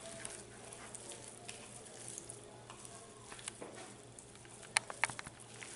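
Hands mixing and squeezing mashed boiled potato with spices and chopped coriander in a plastic bowl: faint soft squishing and crackling, with a few sharp little clicks about five seconds in.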